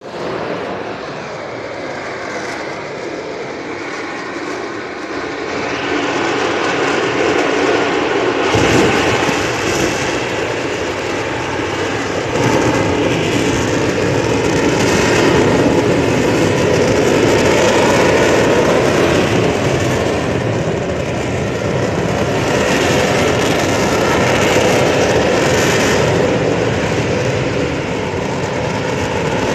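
Huge, continuous roar from a steelworks blast furnace. It grows louder about six seconds in, jumps up sharply at about eight and a half seconds, and stays loud with slow swells.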